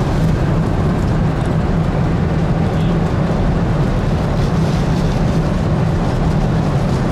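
Boeing 747-400 cabin noise in cruise: a steady low drone of engines and airflow that does not change.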